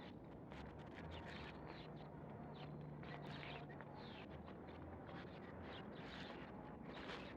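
Small birds chirping outdoors: many short, quick chirps, some sliding down in pitch, over a faint steady low hum.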